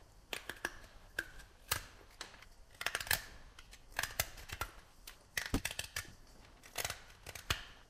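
A utility knife cutting and shaving the end of a dry cane flute and its wooden plug to carve the beak-shaped mouthpiece. The sound is a series of short, sharp cuts and scrapes at irregular intervals, some in quick clusters.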